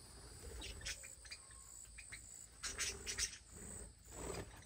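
Small parrots chirping and squawking in short, sharp calls that come in a few quick clusters, as two of the birds squabble.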